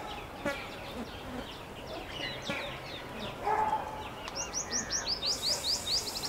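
Male purple sunbird calling with short, sharp, high chirps. From about four seconds in these give way to a fast, even run of quick downslurred notes, about six a second.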